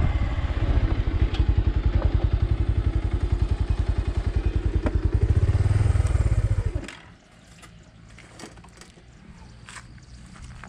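Motorcycle engine idling with an even, rapid beat of about ten pulses a second, switched off suddenly about seven seconds in. Scattered faint clicks and knocks follow.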